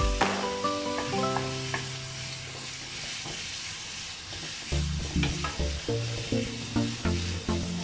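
Minced pork sizzling in a nonstick frying pan while a wooden spatula stirs and scrapes it, over background music.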